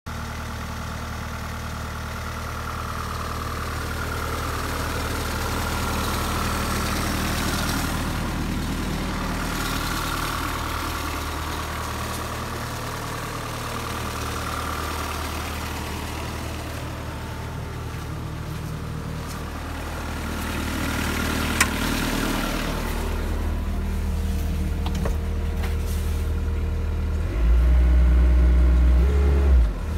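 Timan Tool-Trac 245 compact tool carrier's engine idling steadily, with one sharp click about two-thirds through. Near the end the engine runs louder for about two seconds before dropping back.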